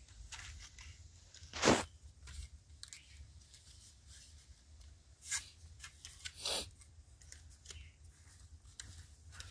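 Aluminium foil trays and their lids crinkling and scraping as they are handled and the lids pressed on, in a few short bursts, the loudest a little under two seconds in.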